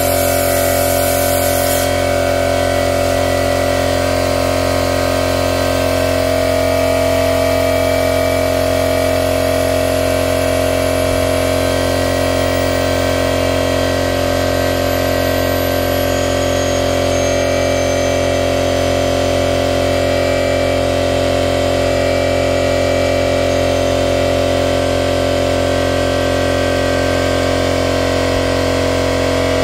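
Coolant exchange machine running steadily with a constant mechanical hum, pumping coolant through a BMW X3's cooling system by a hose at the expansion tank.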